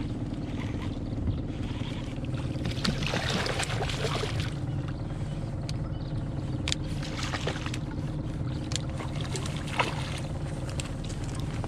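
Boat engine running steadily at low speed, a low even hum. Over it come a brief splashy, noisy patch a few seconds in and scattered sharp clicks and knocks.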